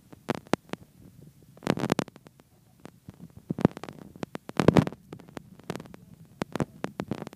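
Irregular sharp taps and clicks close to the microphone, with louder clusters about two seconds in and just under five seconds in, over a low steady hum.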